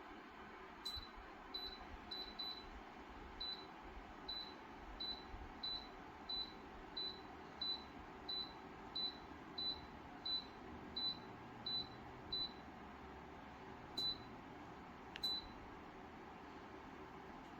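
Electric fan heater's control panel giving short, high, identical beeps as its buttons are pressed: a run of about eighteen beeps roughly one and a half a second apart, then two more spaced further apart. Underneath is a steady low hiss.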